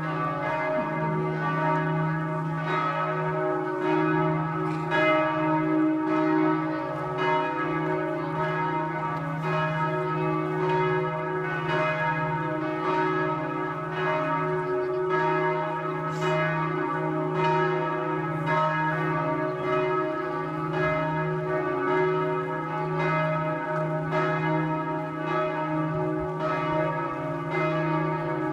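Two sets of church bells ringing at the same time, their strikes overlapping about once a second over a steady hum of ringing tones.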